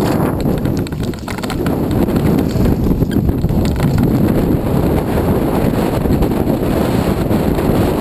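Heavy wind buffeting on an action-camera microphone on a mountain bike riding fast downhill, with tyres crunching over loose gravel and small rattles and clicks from the bike.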